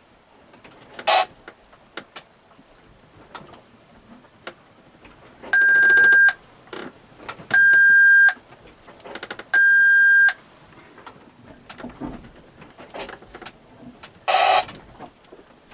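An electronic alarm beeping three times: a steady high beep, each under a second long, about two seconds apart. A short burst of crackling noise sounds about a second in and again near the end.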